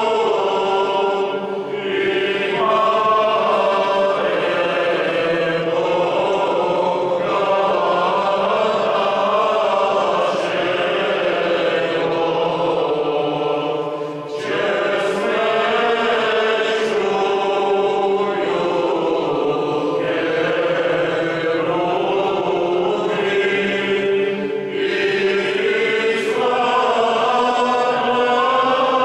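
A men's choir singing Eastern Orthodox church chant a cappella, in long held lines. There are three short breaks for breath.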